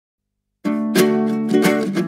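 Background music with plucked-string chords, starting about half a second in after silence.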